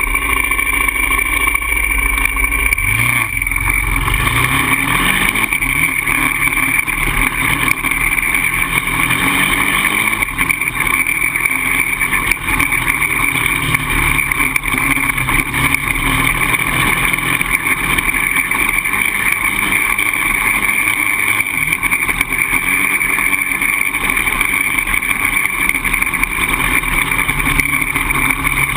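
Polaris Outlaw 525 quad's single-cylinder four-stroke engine running loud under way. The revs climb about three seconds in, then rise and fall as it rides.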